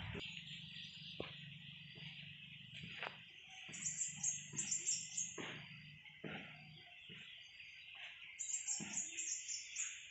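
A bird chirping in two quick runs of high-pitched notes, about four seconds in and again near the end, over a steady background hiss.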